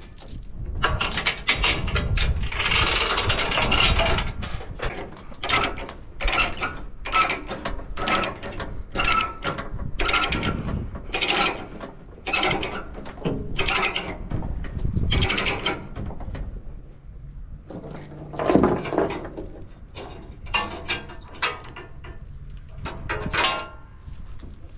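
Steel tie-down chain and a ratchet load binder being worked to cinch the load down: a run of ratcheting clicks and chain links clanking, with one louder clank about two-thirds of the way through.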